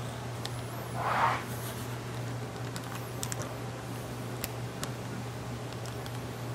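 Light handling sounds of window tint film being worked against a car's door glass: faint ticks and scratches, with one brief rustling swish about a second in. A steady low hum runs underneath.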